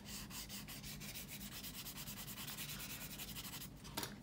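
800-grit sandpaper rubbed in quick, even back-and-forth strokes over a plastic model part, smoothing down cured CA glue filled into a seam line. The strokes stop shortly before the end, followed by a small click.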